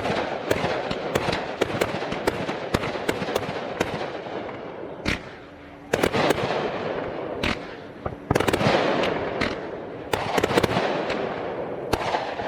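Aerial fireworks going off: repeated sharp bangs over dense crackling. The barrage comes in waves, starting afresh about six seconds in, again a little after eight seconds and again around ten seconds.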